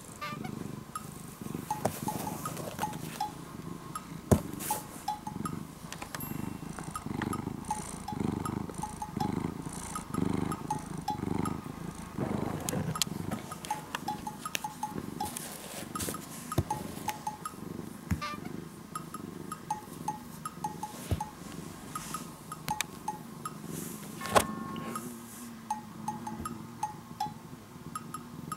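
Domestic cat purring while being stroked, a low rumble that swells and fades in slow pulses, strongest in roughly the first half. Light background music with short plinking notes plays throughout.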